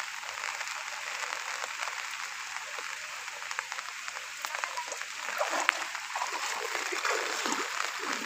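Heavy rain falling steadily on shallow flood water, a dense even patter with scattered louder drops and small splashes in the second half.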